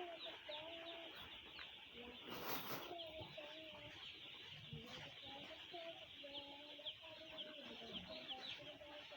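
A flock of chickens clucking, with many short, high peeps running over the clucks. A brief rustle about two and a half seconds in.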